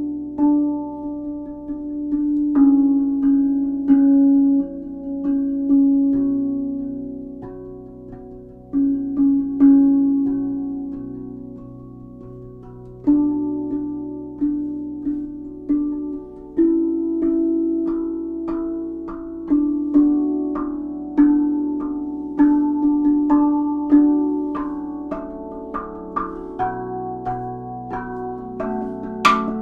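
RAV steel tongue drum in a Kotamo scale, played by hand: a slow, improvised melody of single struck notes, each ringing on and fading, often overlapping. A sharp click near the end.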